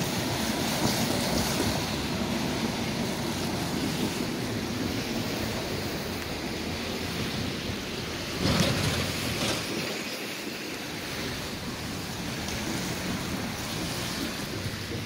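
Steady rushing wind noise on a phone microphone, mixed with the hum of road traffic at a level crossing, with one brief louder rush about eight and a half seconds in.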